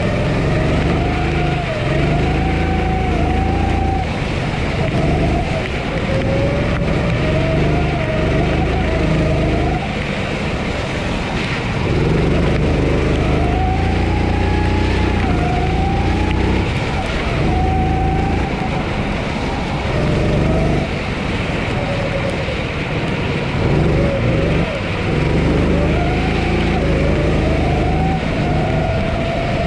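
Honda GX270 single-cylinder four-stroke engine of a Sodi SR4 kart, heard onboard, revving up on the straights and falling off into corners, over and over, over a steady hiss.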